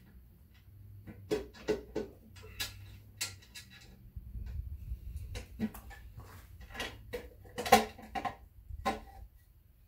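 Irregular metal clinks and knocks as the valve cover is worked loose and lifted off an AMC 4.2-litre straight-six engine, with the loudest knock about three-quarters of the way through.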